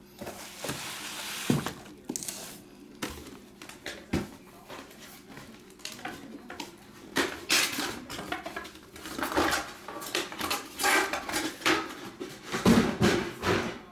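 Packaging being handled: cardboard boxes knocking and sliding, and bubble wrap and plastic crinkling, as a run of irregular clicks, knocks and rustles.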